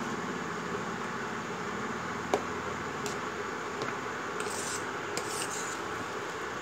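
A metal spoon stirring thick kheer in a metal pot, scraping and rubbing against the pot's sides and bottom, with scattered sharp clicks of the spoon striking the metal, the loudest about two seconds in. A steady hiss runs underneath. The stirring mixes newly added sugar in until it dissolves.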